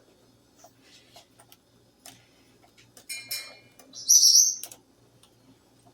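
Pet bird calling in the background: a short whistled call about three seconds in, then a louder, shrill high-pitched call about a second later. A few faint clicks come before them.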